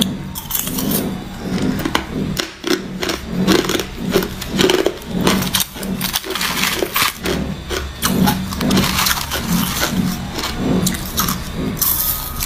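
Chunks of ice being crunched between the teeth: a run of sharp, irregular crunches while chewing. Around the middle there is a spoon scraping through ice in a plastic container.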